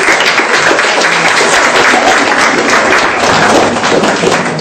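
Audience of pupils applauding for about four and a half seconds, loud and dense, stopping abruptly near the end.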